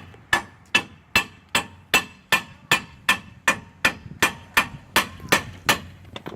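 Dead blow hammer striking metal in a steady rhythm, about two and a half blows a second, each blow with a short ringing tone; the hammering stops about six seconds in.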